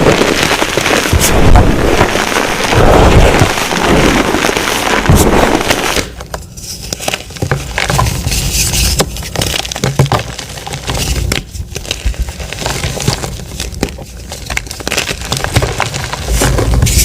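Blocks of gym chalk crushed and crumbled by hand. For about six seconds there is dense, continuous crunching. Then the crumbling becomes softer and sparser, with separate crisp crackles as soft chalk blocks break apart.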